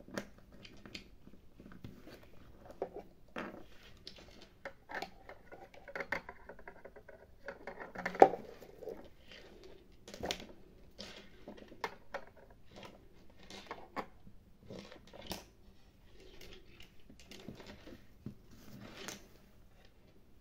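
Small plastic toy pieces being handled and set down on a playset: scattered light taps, clicks and rustles, with one sharper knock about 8 seconds in.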